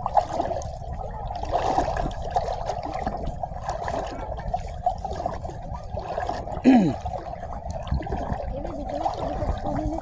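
Water trickling and sloshing steadily over low rumbling noise, with one short sound falling in pitch about two-thirds of the way through.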